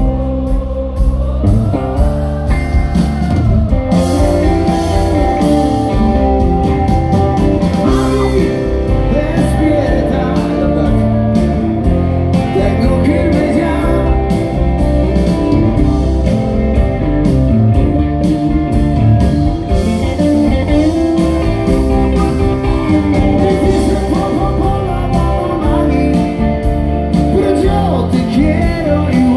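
Live rock band playing loudly through the PA, with electric guitars, bass and drums under a sung lead vocal.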